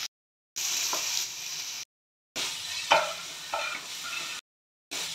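Chopped vegetables sizzling in hot oil in a kadhai while a spatula stirs them, with a few short scrapes of the spatula against the pan. The sound cuts out to dead silence three times, briefly each time.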